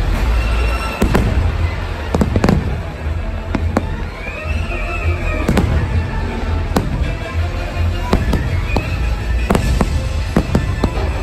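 Aerial fireworks shells bursting in a series of sharp bangs at irregular intervals, over loud show music with a constant deep rumble underneath.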